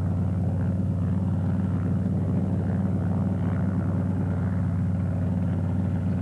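Piston engines of propeller-driven WWII fighter and torpedo planes running at a steady low idle while taxiing, a constant low drone with no revving.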